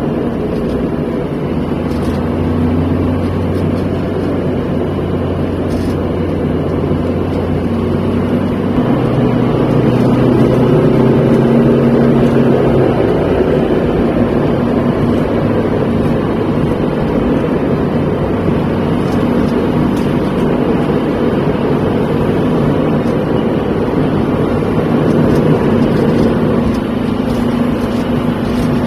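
A car engine with tyre and road noise, heard from inside the cabin while driving: a steady low drone. Its pitch steps up about a third of the way in and drops back a few seconds later.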